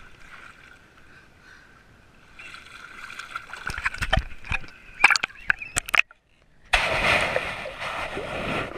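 Lake water splashing and sloshing around a waterproof action camera held at the surface, with sharp knocks as it hits the water. About seven seconds in, after a brief drop-out, the camera goes under and the sound turns into a dense, muffled underwater rush.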